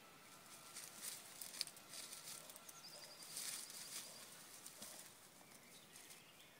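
Fox terrier rustling and crackling through dry twigs and leaves as it pushes into shrubbery; faint, busiest in the first four seconds and dying away after about five.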